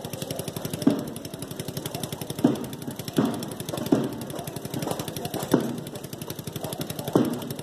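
Procession percussion: a continuous fast rattle with heavier, deeper strikes about once a second, unevenly spaced.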